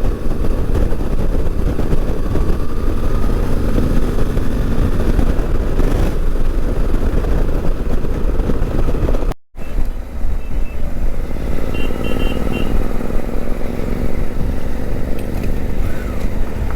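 Suzuki V-Strom 800DE's parallel-twin engine running while riding, under heavy wind rumble on the helmet microphone. The sound cuts out for an instant about nine and a half seconds in.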